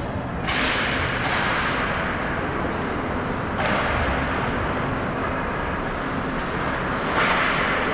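Ice hockey skate blades scraping and carving the ice: four sudden hissing scrapes, each fading over a second or so, over steady low background noise.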